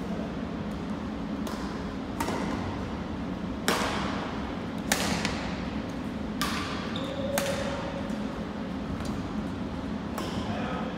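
Badminton rackets hitting a shuttlecock back and forth in a rally: sharp strikes roughly a second apart, echoing in a large gym hall, over a steady low hum.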